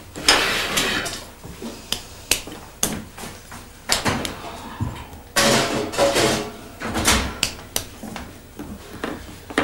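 Kitchen clatter: several sharp knocks and clicks of pans and utensils, with two rushes of noise of about a second each, near the start and about halfway through.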